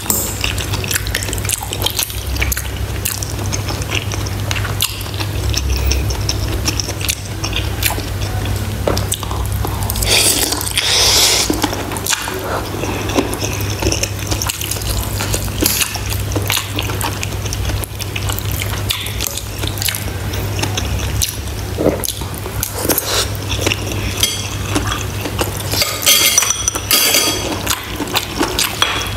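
Close-miked eating sounds of pork bone soup with rice: wet chewing and mouth sounds with many small clicks, and a fork and spoon touching the bowls. Two louder wet, hissy stretches come about ten seconds in and near the end.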